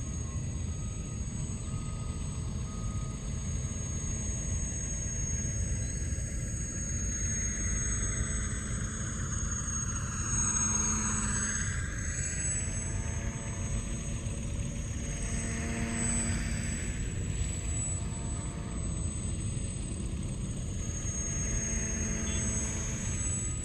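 Model Magnus-effect twin rotorcraft in flight: its spinning rotors make a whirring hum with a steady high whine. The sound swells three times as it passes close, and on the loudest pass, near the middle, the pitch dips and rises again. A steady low rumble runs underneath.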